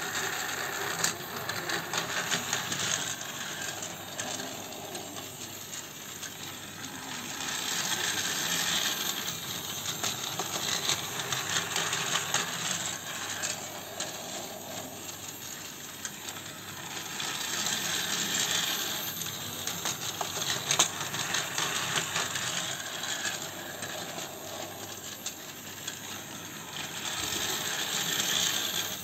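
Battery-powered toy train running on plastic track: a steady motor whir with clicking and rattling of wheels and cars over the track joints. It swells louder and fades again about every ten seconds.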